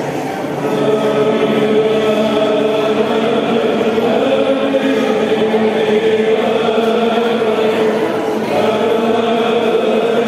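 A Byzantine chant choir singing in long, slowly moving melodic lines, with one note held steady underneath throughout, the ison drone of psaltic chant.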